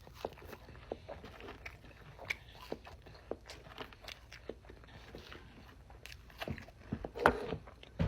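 A person chewing food close to the microphone: crunching with small wet mouth clicks throughout, and a louder crunch about seven seconds in.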